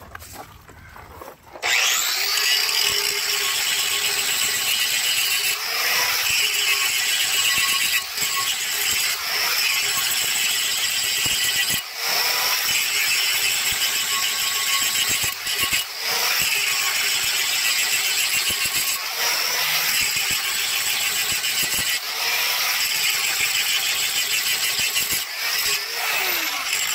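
Angle grinder spinning up about two seconds in and grinding lightly around the inside of a cast iron brake drum, scuffing the glazed friction surface so the shoes grab better; the motor pitch dips briefly each time the disc bites, and it winds down near the end.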